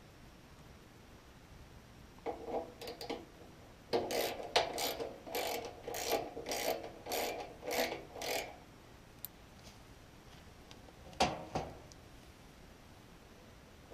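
Quarter-inch socket ratchet loosening the screw on a blower motor run capacitor's mounting strap: a short burst of ratcheting about two seconds in, then a run of about nine ratcheting strokes, roughly two a second. One sharp click about eleven seconds in.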